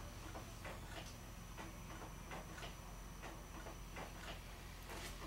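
Makeup sponge dabbing concealer onto skin: faint soft taps, about three or four a second, over a faint steady high whine.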